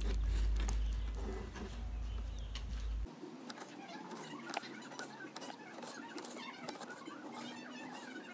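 Kitchen knife slicing geoduck siphon into rounds on a plastic cutting board: a run of quick taps and clicks as the blade chops through and meets the board. A low rumble under it stops suddenly about three seconds in.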